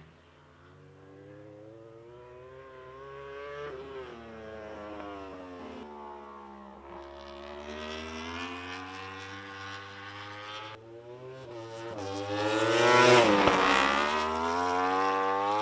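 Motorcycle engine revving, its pitch climbing and falling several times and growing louder, loudest near the end.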